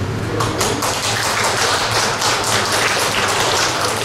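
A small audience applauding, with many separate hand claps running together.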